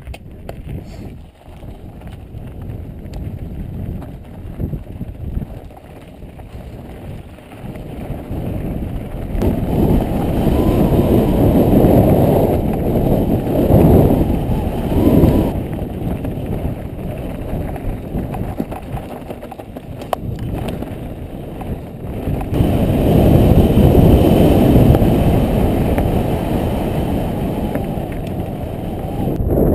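Wind buffeting the microphone of a camera on a moving mountain bike, over the crunch and rattle of the bike rolling along a rocky dirt trail. The wind noise swells heavily about a third of the way in and again for the last quarter, with a few sharp knocks from the bike over stones.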